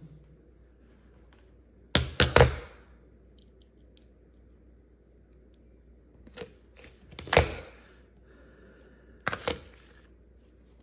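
Sharp knocks of a plastic ABS module housing and hand tools being handled and set down on a granite countertop: a quick run of three about two seconds in, a loud single knock past the middle, and a double knock near the end.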